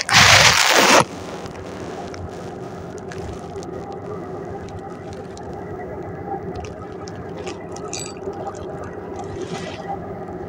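A loud rustling burst of handling noise against the microphone for about the first second. After it comes a steady engine drone with a few light clicks.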